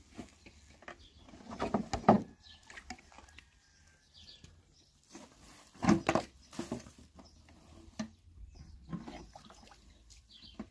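Water sloshing and splashing in a large plastic basin as hands work and scrub something in it. It comes in irregular bursts, about two seconds in, loudest near the middle, and again near the end.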